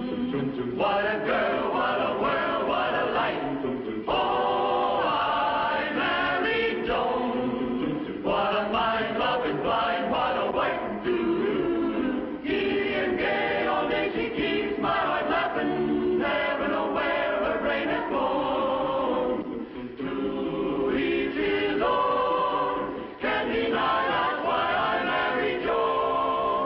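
A choir singing a sitcom's opening theme song, in phrases of a few seconds with short breaks between them.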